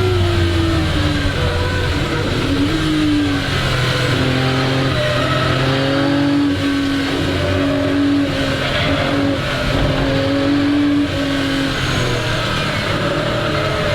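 1961 Ferrari 250 GT SWB's Colombo V12 engine running hard under way, its revs falling over the first second or so, then rising and dropping again and again with throttle and gear changes, and falling once more near the end.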